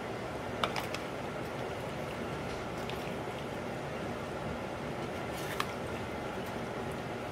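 Macaroni and thick cheese sauce being stirred in a disposable aluminium foil pan: wet squishing of the pasta, with a few sharp clicks of the utensil against the foil, twice near the start and once more later, over a steady background noise.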